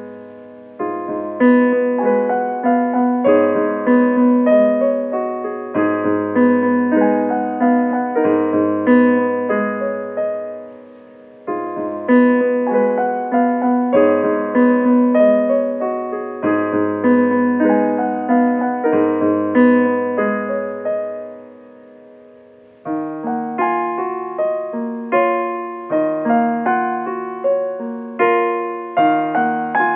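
Solo piano playing slow chords and a melody with low bass notes; the phrases let the notes ring out and fade twice, about ten seconds in and again around twenty-one seconds in, before playing resumes.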